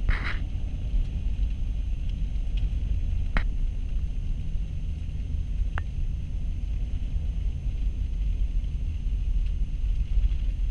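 Steady low rumble of a vehicle driving on a snow-covered highway, heard from inside the cabin: engine and studded snow tyres on the road surface, with a faint hiss above it. A couple of faint ticks sound partway through.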